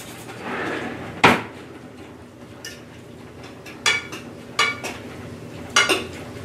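A fork clinking against a metal saucepan while stirring seasoned raw sliced beef: a sharp knock about a second in, then a few scattered ringing clinks.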